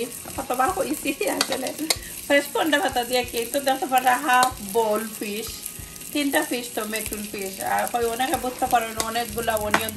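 Metal spoon scraping flaked mackerel and chopped coriander out of a ceramic bowl into a plastic mixing bowl, in repeated scraping strokes with squeaky, pitched scrapes.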